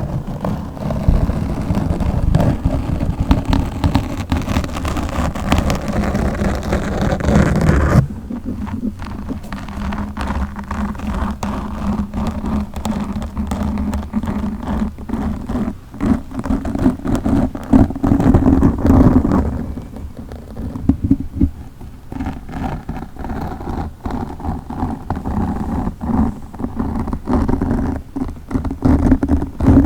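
Fingers scratching and rubbing directly on a microphone: a loud, dense rustling crackle full of pops and rumbling handling noise. About eight seconds in, the sharper high crackle drops away abruptly, leaving a duller scratching.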